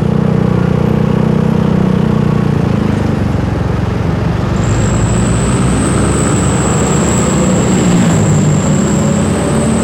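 Motorcycle engine running at low road speed, heard from the rider's seat amid road traffic; its note sags slightly midway and picks up again near the end. A thin, steady high-pitched whine joins about halfway through.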